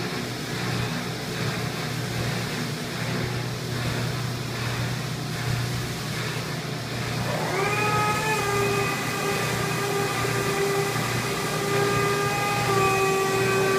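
Paper extrusion-coating lamination machinery running with a steady low hum and noise. About halfway in, a whine joins, slides up briefly and then holds steady.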